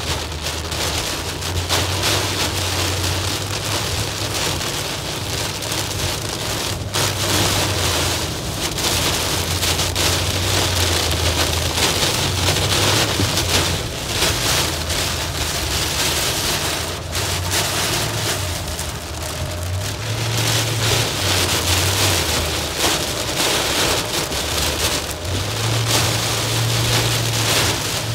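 Heavy rain pelting a car's windshield and roof, heard from inside the moving vehicle, with the low, steady hum of the vehicle underneath.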